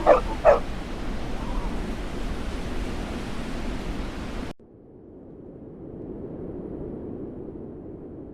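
Two short, loud animal calls about half a second apart, over a steady rushing noise like wind or surf. About four and a half seconds in, the recording cuts suddenly to a quieter, duller rushing noise.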